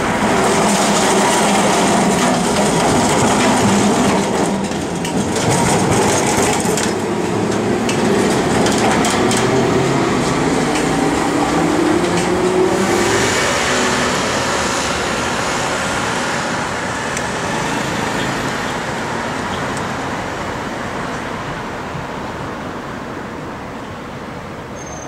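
Street traffic with a W-class tram running past on its rails while cars drive by. About halfway through, a tone rises in pitch, like a motor speeding up. The noise slowly fades toward the end.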